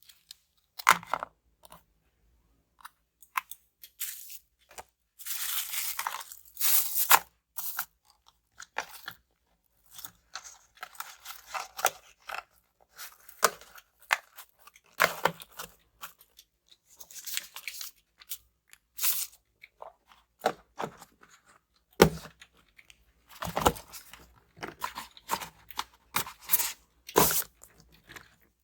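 Hands handling a smartphone's retail box and packaging: irregular rustles, scrapes and sharp clicks, with a longer stretch of rustling about five to seven seconds in.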